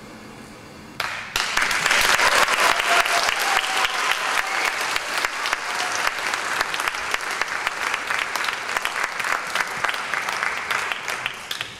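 Audience applauding, breaking out suddenly about a second in as a dense patter of many hands clapping, then dying away near the end.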